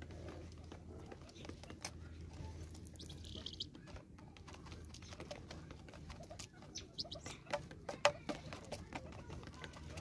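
Helmeted guineafowl pecking seed from a plastic bottle feeder: a run of sharp taps, thickest and loudest about seven to eight seconds in. A short high bird call sounds about three seconds in.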